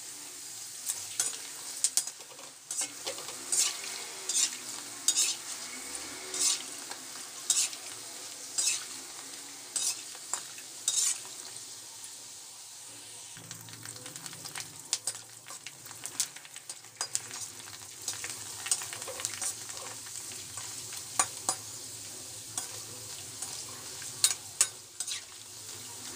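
Puri shells deep-frying in hot oil in a steel kadhai, sizzling steadily, with frequent sharp clicks and scrapes of a metal spoon stirring and pressing them against the pan.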